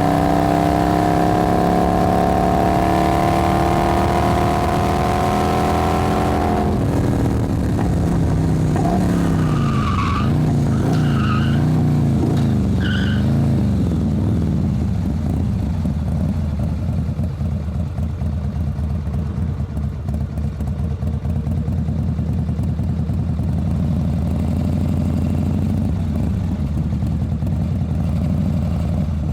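Motorcycle engine pulling hard with its pitch climbing steadily, then dropping suddenly about seven seconds in. It revs up and down a few times with some short high squeals, then settles into a steady low running note for the rest.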